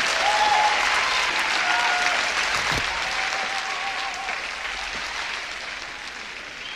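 Large audience applauding and cheering, with a few voices whooping over the clapping; the applause dies down gradually.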